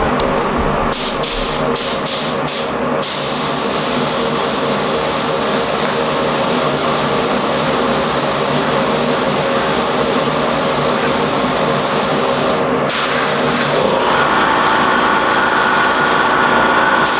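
Air spray gun hissing as it sprays Cerakote ceramic coating onto an engine: several short bursts, then a long steady spray with one brief pause. A steady humming tone joins in near the end.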